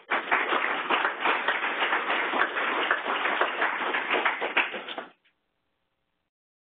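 Audience applauding: dense, even clapping that cuts off suddenly about five seconds in.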